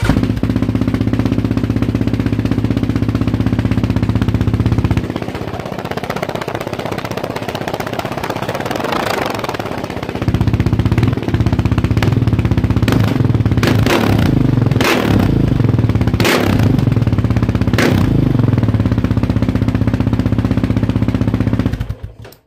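2017 Yamaha Raptor 700R's single-cylinder engine running loud through an FMF full exhaust with no spark arrestor. It runs steadily at first, then is revved several times in the second half, the pitch falling back after each blip, and it shuts off near the end.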